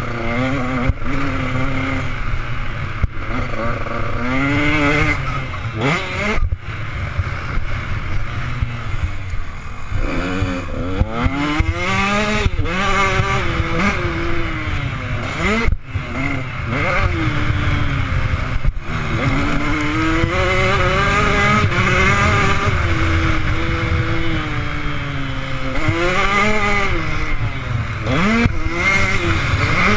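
Motocross bike engine heard from a helmet-mounted camera, revving hard up and down through the gears as it is ridden round a dirt track. The pitch climbs and then drops sharply at throttle cuts several times, over a steady low wind rumble.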